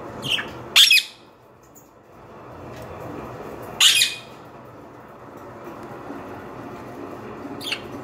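Budgerigars giving short calls: two in quick succession about a second in, the loudest, another around four seconds, and a fainter one near the end.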